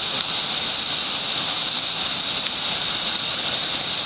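Steady rush of a waterfall, an even roar of falling water with no breaks, with a steady high-pitched tone running through it.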